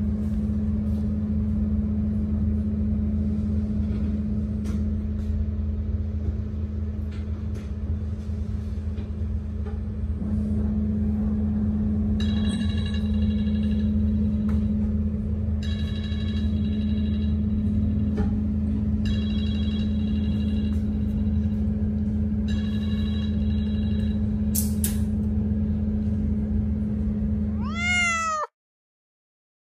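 A steady low hum runs under everything. In the second half a short, high, chirping sound repeats four times, about every three and a half seconds. Near the end a cat meows once, and then the sound cuts off.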